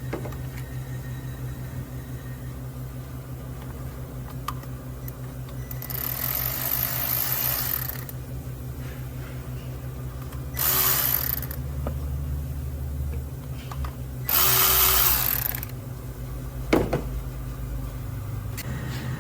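Three bursts of a power tool during a repair, the first about two seconds long and the other two about a second each, over a steady low mechanical hum. A sharp click comes near the end.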